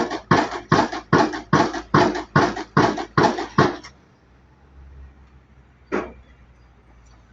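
Hydraulic impact hammer of a Junttan PM 23 pile driving rig striking a pile in a steady rhythm of about two and a half blows a second. The blows stop a little under four seconds in, leaving a low engine hum, and one more sharp knock comes about six seconds in.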